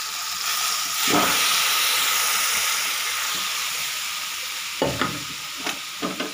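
Hot oil and spice tadka in a kadhai sizzling as pressure-cooked dal and bathua greens are poured in. The hiss grows louder about a second in, then slowly fades, with a few short knocks near the end.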